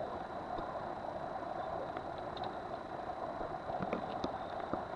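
Boat engine running steadily, with water rushing along the hull as the boat moves. A few faint short splashes come near the end as dolphins surface at the bow.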